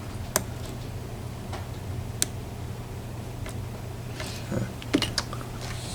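Lock-picking tools in a Paclock 90A padlock: a few sharp, separate clicks and taps of the metal pick and tension wrench against the lock as pins are worked, with some handling rustle near the end, over a steady low hum.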